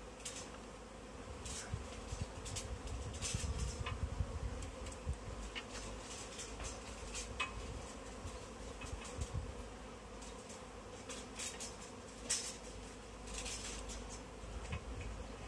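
Honey bee swarm buzzing steadily, with scattered short clicks and rustles over it.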